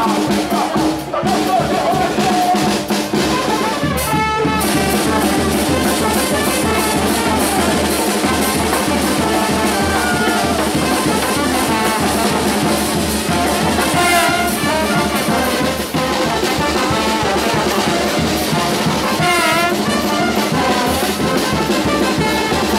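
A charanga street band playing live: trombones, trumpets and a tuba over a bass drum with a cymbal on top and a snare drum, keeping a steady beat.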